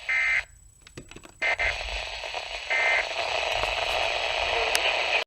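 Weather radio sending the Emergency Alert System end-of-message signal after a warning: three short buzzy digital data bursts about a second and a half apart. Radio static hisses between and after them, growing louder after the third burst.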